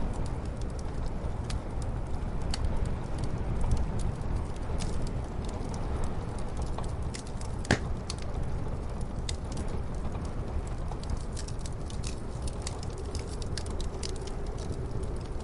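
Wood fire crackling in a fireplace, with scattered sharp pops, one louder about halfway through, over a steady low rumble of muffled storm wind.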